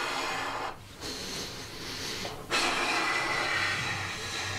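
Compressed helium hissing from a cylinder into a balloon in three bursts, each with a short break, the last one the longest.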